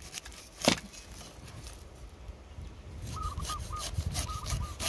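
Knife blade cutting the spiny rind off a whole pineapple against a wooden chopping block. A sharp knock comes a little under a second in, then a run of short slicing and scraping cuts near the end.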